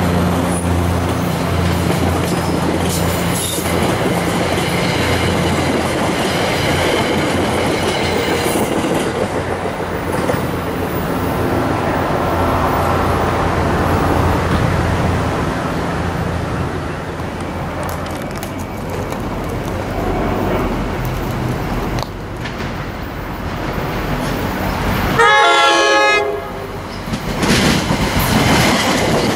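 A diesel-hauled commuter train passing close: a Metro-North F40PH-3C locomotive's engine drone gives way to the coaches' wheels clattering over rail joints, the rumble slowly fading as the train recedes. Near the end, an approaching NJ Transit push-pull train with a GP40PH-2 locomotive pushing from the rear sounds a short horn blast from its leading cab car.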